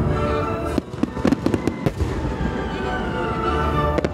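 Aerial fireworks shells bursting, with a quick run of sharp crackling cracks about a second in and more near the end, over music playing steadily underneath.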